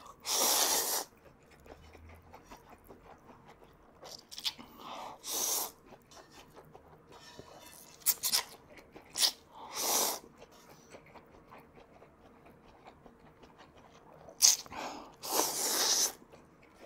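Instant ramen noodles being slurped from chopsticks. There are four long, loud slurps, near the start, at about five and ten seconds, and near the end, with shorter slurps and chewing sounds between them.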